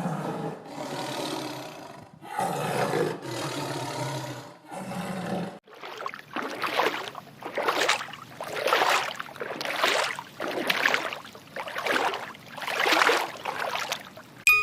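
An animal giving several low growls, then a run of hoarse rhythmic grunts or breaths, about one a second.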